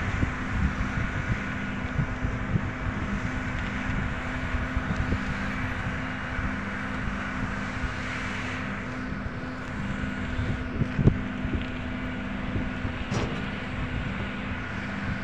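Wind buffeting the phone's microphone over a steady engine hum from vehicles and machinery on the road, with a sharp knock about eleven seconds in.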